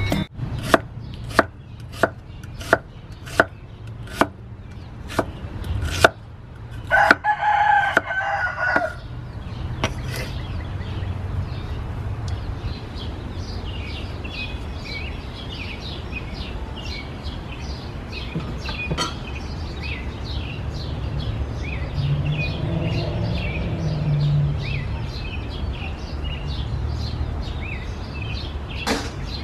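A run of evenly spaced sharp knocks, then a rooster crowing once about seven seconds in. After that, small birds chirp over a steady outdoor background.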